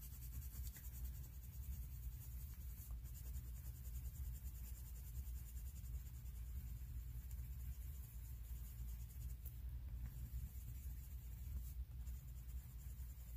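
White coloured pencil shading over blue on a colouring-book page: the soft scratch of the pencil on paper as it blends the colour, over a steady low hum.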